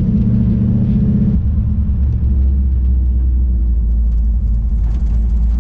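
Chevelle's 468 cubic-inch big-block V8, fitted with a Holley fuel injection unit, running with a low rumble that changes about a second and a half in, settling into a steadier, lower drone. The engine is behaving as if it is not getting enough fuel.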